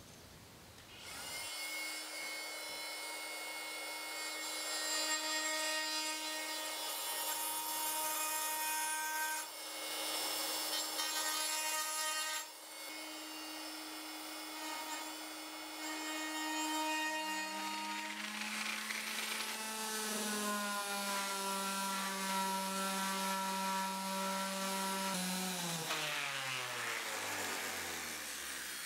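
Electric woodworking power tool starting up and running at high speed through wood, its high whine stepping down to a lower pitch about two-thirds of the way through. In the last few seconds the whine falls smoothly away as the switched-off motor coasts to a stop.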